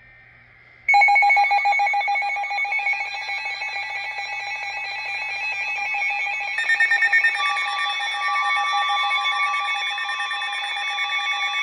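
Emergency Alert System alert: the tail of a buzzy data burst, then about a second in the loud, harsh two-tone attention signal sounds steadily. More tones join in about halfway through. It signals that a severe thunderstorm warning is about to be read.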